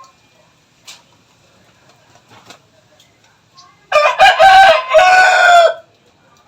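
Rooster crowing once, loud and close, a call of about two seconds that starts about four seconds in.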